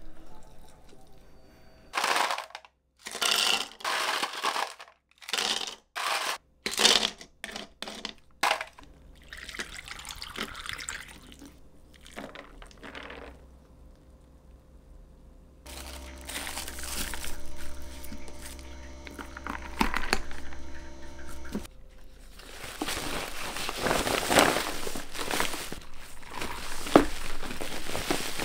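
Drink-making and packing sounds: a series of short clatters in the first several seconds, then liquid pouring with a steady hum under it in the middle. Near the end comes a long crinkling of a paper tote bag being handled and packed.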